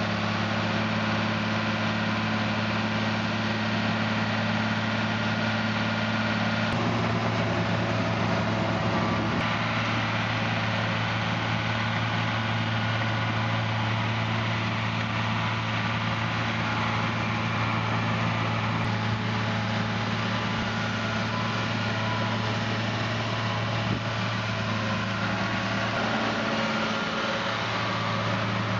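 Ford TW-25 tractor's six-cylinder diesel running steadily under load while it drives a McHale F550 round baler baling silage, the baler's machinery working in with the engine note. The note shifts a little about seven and nine seconds in.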